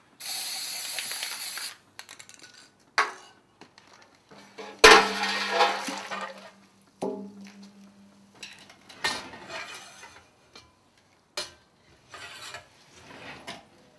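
Aerosol can of graphite mold-release spray hissing steadily for about a second and a half as it coats a cold iron press mold. Then come irregular metal clanks and knocks of steel rods and tools around the glass furnace and mold, the loudest about five seconds in, with a low hum for a few seconds around it.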